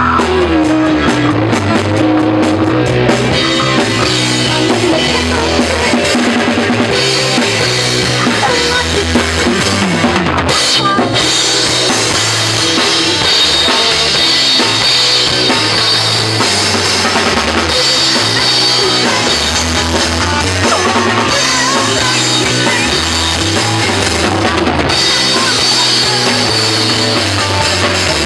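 Rock band playing live on drum kit and electric guitar, loud and without a break.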